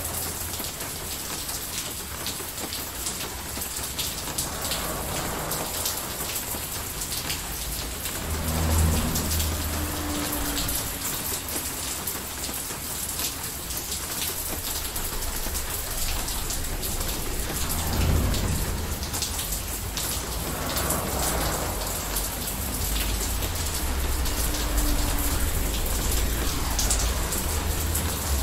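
Steady rain from a thunderstorm recording, with low rumbles of distant thunder swelling about nine and eighteen seconds in.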